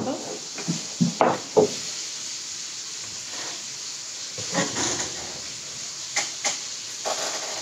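Crunching and chewing of crispy fried chicken close to the microphone: a few short, separate crunches and mouth sounds scattered through, over a steady hiss.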